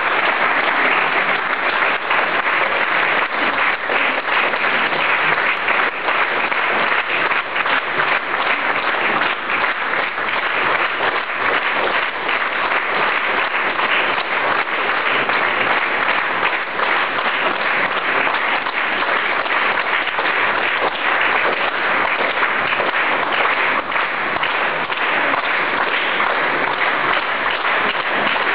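Audience applauding: a long, steady round of dense clapping.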